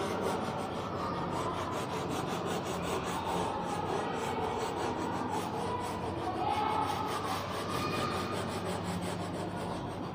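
Chalk rubbing and scraping against a chalkboard in quick back-and-forth strokes as an area of a drawing is shaded in.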